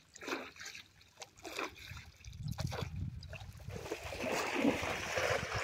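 Shallow river water splashing as a person wades through it: a few short splashes at first, then heavier, continuous splashing from about two seconds in, loudest near the end.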